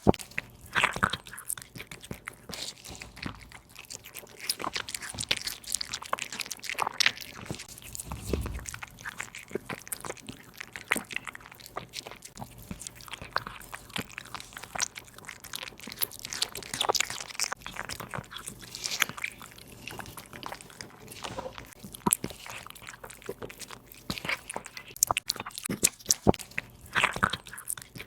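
A cat chewing and crunching through raw meat and bone, with irregular sharp crunches and bites.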